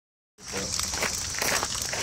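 Footsteps on a gravel path, a crunch every few tenths of a second, over a steady high-pitched hiss.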